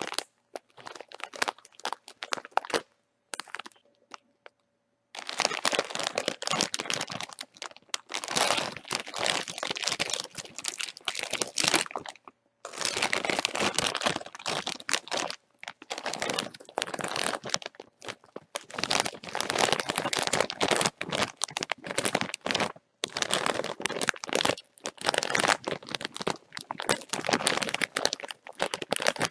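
Bag of chips being crinkled in long crackling bursts broken by short pauses, quieter for a few seconds near the start.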